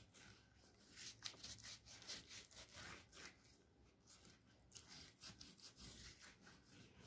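Faint, repeated soft swishing strokes of a silicone pastry brush spreading a wet yogurt-and-oil sauce over a sheet of lavash.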